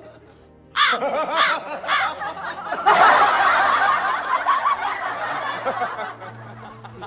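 Laughter: three short high calls about half a second apart, then a longer, denser run of laughter from about three seconds in that tails off near the end.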